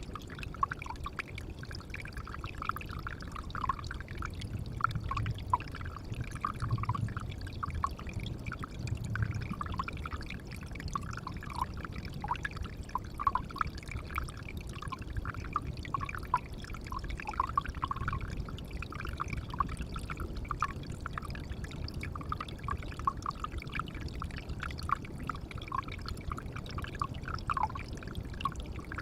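Water pouring and trickling steadily into a pond, with many small plinks of falling drops over a low rushing noise.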